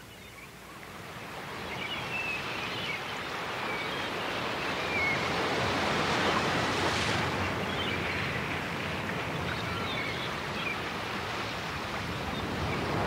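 Recorded ocean surf: a wash of breaking waves that swells over the first few seconds, then holds steady, with faint short high chirps above it.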